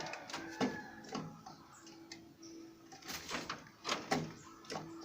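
A series of short, sharp sounds, a few scattered and a cluster of them about three to four seconds in, over a faint on-and-off steady hum.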